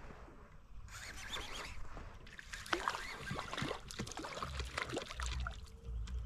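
Water splashing, with scattered short knocks and rustles, as a small pintado catfish is brought up to a kayak and landed.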